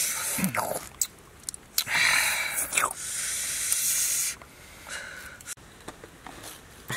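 Kitchen knife cutting and scraping into the flesh of a peeled pineapple: a few long, wet cutting strokes over the first four seconds, then quieter, with only a few light clicks.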